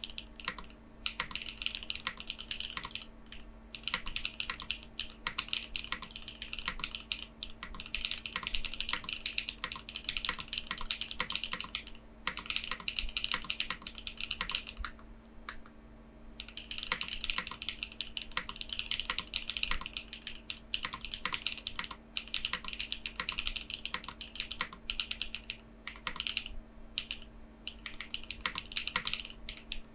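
Haven TKL mechanical keyboard with Gateron Silyworks SLAY Type R switches and PBTFans Pyga PBT keycaps being typed on: a rapid stream of keystroke clacks in runs of several seconds, broken by brief pauses.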